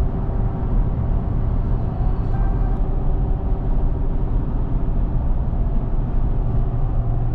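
Truck driving on the highway while towing a trailer: a steady low rumble of engine and road noise that does not change.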